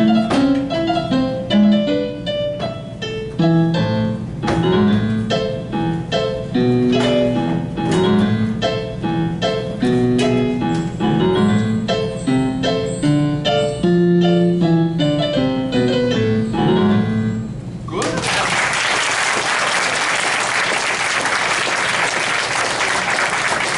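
Solo piano piece played note by note. It ends about 18 seconds in, and audience applause follows.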